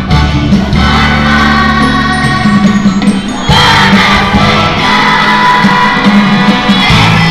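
A choir of third-grade children singing a song together, with an instrumental accompaniment holding long low notes underneath. The singing grows louder and fuller about three and a half seconds in.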